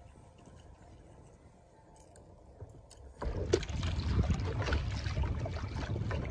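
Faint at first, with a couple of small clicks; a little over three seconds in the sound jumps to a kayak paddle splashing through the water, with wind buffeting the microphone.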